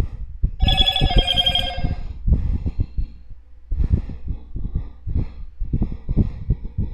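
An electronic ringtone repeating in a rhythmic pattern, with a bright bell-like chime about a second in.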